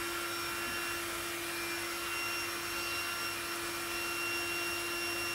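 Exped Widget, a small rechargeable battery air pump, running steadily as it inflates an Exped Megamat Duo mattress through the valve: an even motor hum at one constant pitch, with a fainter high whine over an airy hiss.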